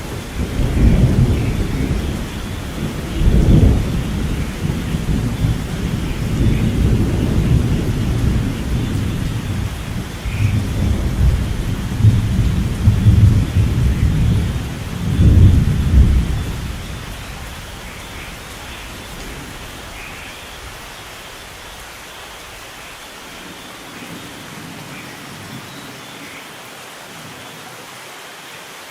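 Thunder rumbling in several deep swells over steady rain, dying away about two-thirds of the way through and leaving only the even hiss of the rain.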